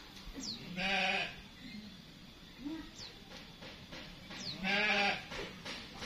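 Two bleats from a farm animal, about four seconds apart, each about half a second long and quavering. Between them come a few short, high, falling chirps from small birds.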